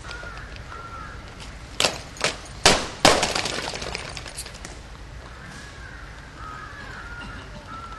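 Drill of a ceremonial guard: four sharp impacts, about half a second apart, the last and loudest ringing on and fading over a couple of seconds.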